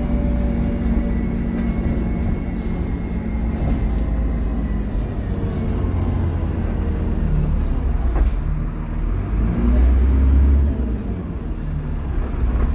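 Dennis Trident double-decker bus engine running under way, its low drone swelling louder about ten seconds in, with a thin whine that fades over the first few seconds. A short high beep and a click sound about eight seconds in.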